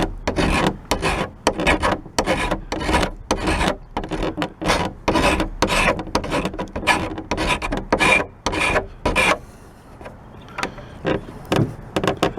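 A hand file rasping back and forth over the corner of a door latch in quick, even strokes, about two to three a second, to take the corner down so the sticking latch slides on more easily. The strokes stop about nine seconds in, with a few scattered strokes near the end.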